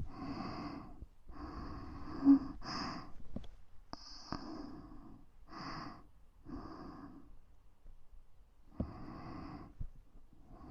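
Close-miked ASMR breathing: about seven soft, breathy puffs of breath into the microphone, each under a second to about a second long, with short uneven pauses between them. A brief louder pop a little after two seconds in is the loudest moment.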